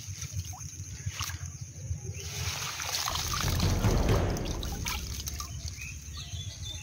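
Water splashing and trickling as a ring-framed mesh fish trap is moved through shallow water. It swells about halfway through and fades again.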